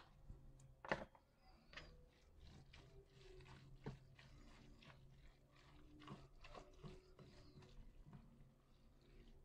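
Faint wet squelching and scraping as a wooden spoon stirs a mayonnaise-dressed shredded filling in a plastic bowl, with a sharper knock about a second in.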